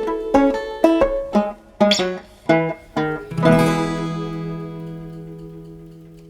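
Background music on plucked strings, guitar or banjo, playing a short run of notes and ending on a final chord about three and a half seconds in that rings and slowly fades away.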